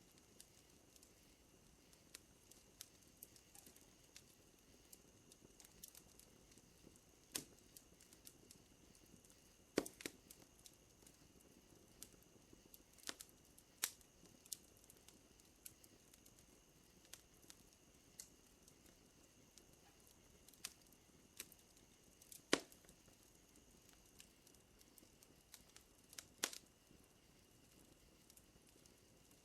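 Wood fire crackling: scattered small snaps and pops, with a handful of louder cracks spread through, over a faint steady high drone.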